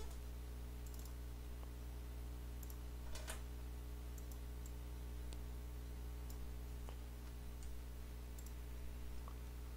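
Computer mouse clicking a dozen or so times at irregular intervals over a steady low electrical hum.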